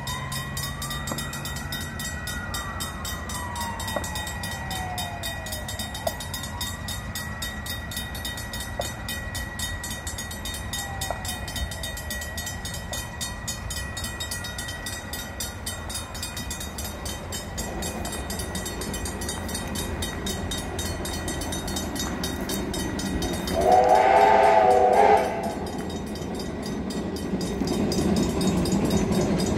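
A steam locomotive's whistle gives one loud blast of about a second and a half, three-quarters of the way through, as the locomotive approaches the level crossing. The locomotive's low rumble then builds as it draws nearer. A steady high tone sounds throughout.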